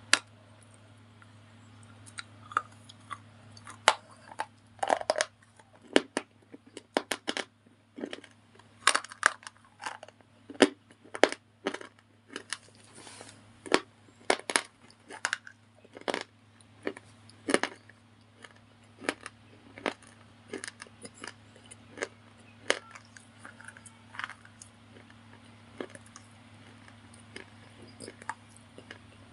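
White slate bars being crunched and broken, a long run of sharp, irregular cracks and crunches, some coming in quick clusters.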